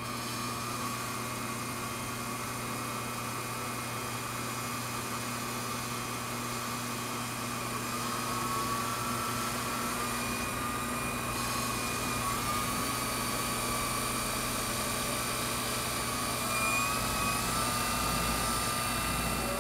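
Wood lathe running steadily with a pen mandrel and sugar maple blanks spinning, a shop towel held against the turning wood. A steady motor hum with a higher whine that wavers slightly.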